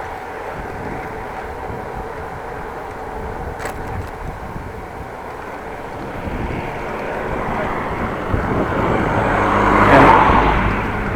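A motor vehicle passing, getting louder over several seconds to a peak near the end and then easing off, over a steady rushing background.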